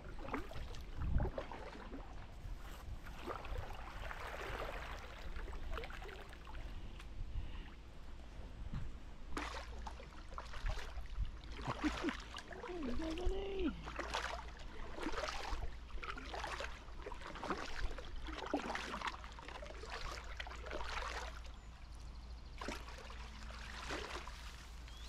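Kayak paddle strokes in calm river water: the blade dipping and splashing, with water trickling off it, coming about once a second through the second half.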